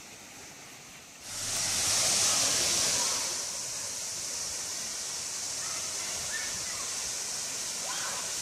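Stillhouse Hollow Falls: water pouring over the rock ledge, heard as a steady rushing hiss that cuts in suddenly about a second in, louder for the first couple of seconds and then even.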